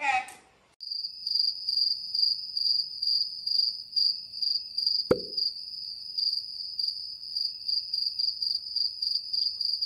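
Cricket-chirping sound effect: a steady, rapid, high-pitched chirping that starts and stops abruptly, the comic 'crickets' cue for a blank, wordless reaction. A single sharp click about five seconds in.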